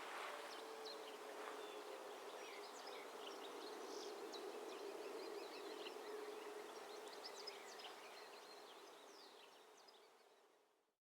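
Faint outdoor ambience of small birds chirping over a low steady hum, fading out about ten seconds in.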